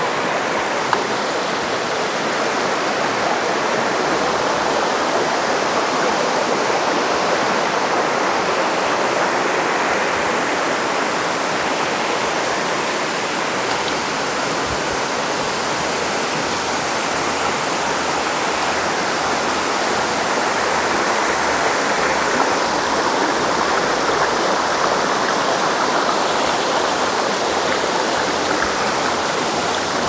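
Steady loud rush of river water and a waterfall.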